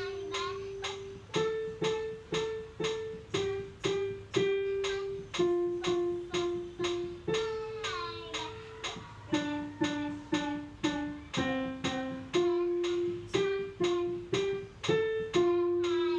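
A child plays a simple melody on a digital piano, one note at a time at a steady beat, and sings along with the tune.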